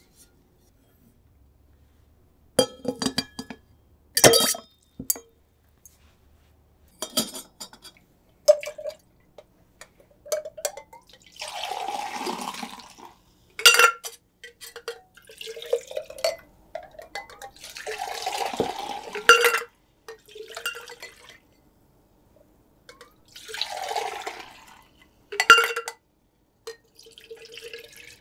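Liquid poured into a glass three times, in pours of a second or two each, with sharp clinks of glassware before and between them.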